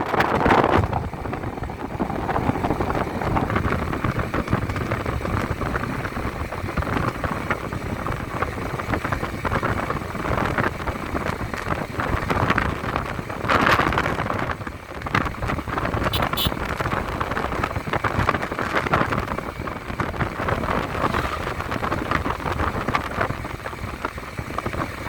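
Wind buffeting the microphone over the steady running noise of a vehicle, with a louder gust about halfway through.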